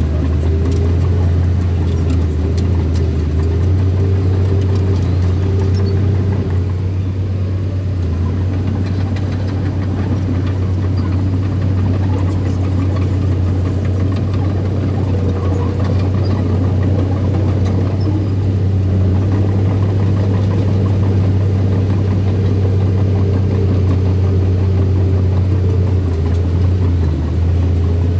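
Heavy diesel engine of earthmoving machinery running steadily under load, with a deep low hum and a higher engine tone that rises and falls slightly as the throttle changes.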